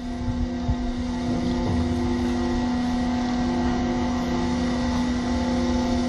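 Hydraulic static pile pressing machine's engine and hydraulic power unit running steadily, a constant hum over a low rumble, while its crane hoists a concrete pile.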